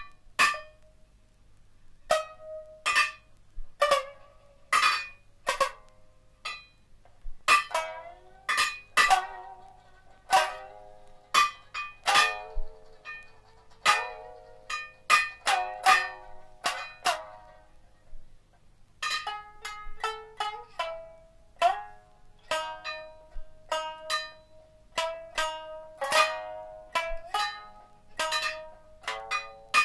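Sangen (shamisen) played with sharp plucked single notes and short clusters. Some notes bend in pitch as they ring, and there is a pause of about a second a little past halfway.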